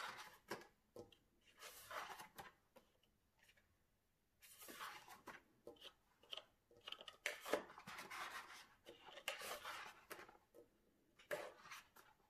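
Heavy paper pages of a coloring book being turned by hand: faint paper swishes and rustles in a series, with a short pause about three seconds in before more page-turning.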